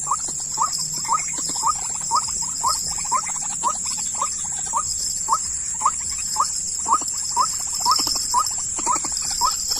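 White-breasted waterhen (dahuk) calling: a short rising note repeated evenly, about twice a second, over a steady high-pitched drone.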